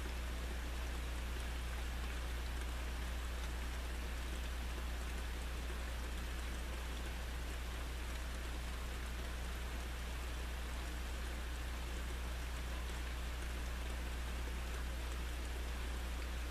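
Steady thunderstorm rain, an even hiss of falling drops with no thunder, over a constant low hum.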